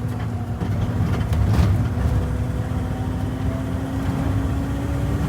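Steady low rumble of a vehicle in motion, with a faint tone that slowly rises in pitch.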